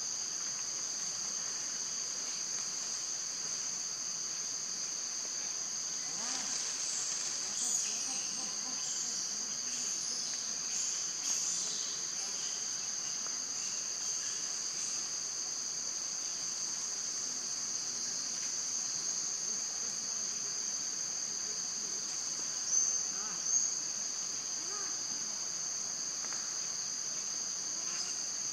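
Steady, high-pitched insect chorus droning without a break. A few short chirps or calls stand out over it, most of them between about 7 and 12 seconds in and two louder ones near the end.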